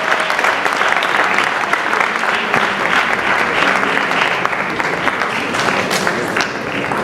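A large audience applauding, many hands clapping in a dense, steady patter that eases slightly near the end.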